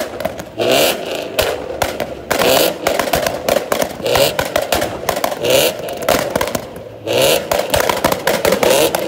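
A car engine revved over and over, one sharp rev about every second and a half, with crackling pops between the revs.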